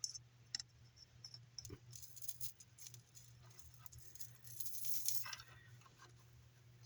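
Small clicks and light rattles of parts and tools being handled during bench soldering work, with a brief scratchy stretch about five seconds in, over a faint steady hum.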